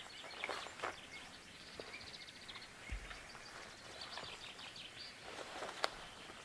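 Quiet snowy forest: a few scattered soft crunches and clicks, and a small bird's rapid high trill, heard twice.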